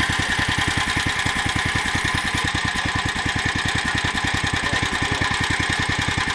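Motor Sich MB-4.05 walk-behind tractor's engine running steadily with a rapid, even chugging beat.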